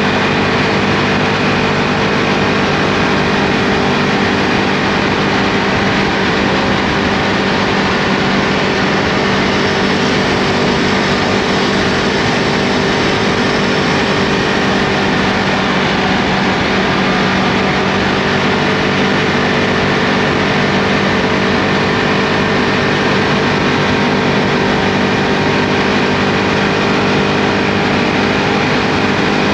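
Ducati Multistrada V2S's 937 cc Testastretta V-twin running at steady revs while cruising, mixed with a steady rush of wind noise.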